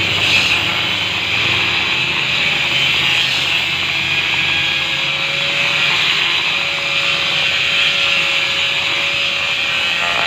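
Handheld power grinder working a granite countertop slab, running steadily under load throughout.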